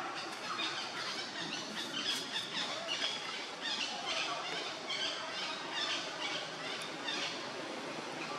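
Monkeys calling: many short, high-pitched calls in quick succession, overlapping one another.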